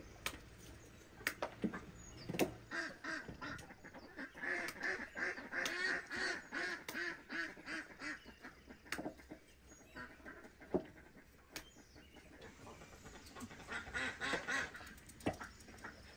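Ducks quacking in quick runs of repeated calls, from about three to nine seconds in and again near the end. Sharp clicks and knocks from knives cutting pumpkin on a metal tray are heard between the calls.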